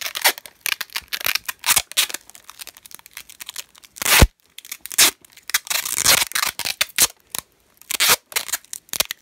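Masking tape being ripped off the roll in short bursts and wrapped round a crinkly, tape-covered bundle. There is a sharp knock about four seconds in.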